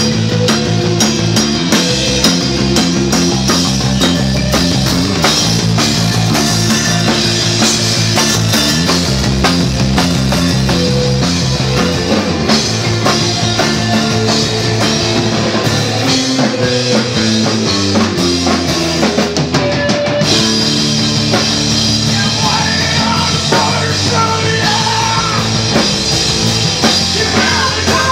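Live rock band playing loud: electric guitar, bass and a drum kit with crashing cymbals. The drums and cymbals drop out briefly about two-thirds of the way through, then the full band comes back in.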